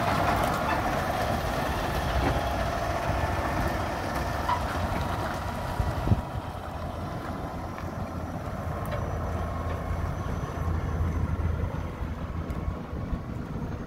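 Diesel semi-truck pulling a lowboy trailer away, a low engine rumble that grows fainter after about six seconds as the truck moves off. A single sharp knock about six seconds in.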